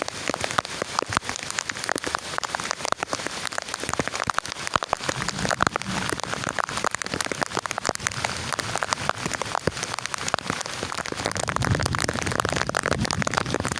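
Heavy rain pattering on a surface, a dense, irregular spatter of individual drop hits over a steady hiss. A low rumble builds near the end.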